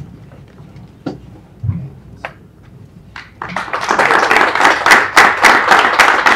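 A few isolated taps, then about three and a half seconds in a room of people breaks into applause that quickly grows loud.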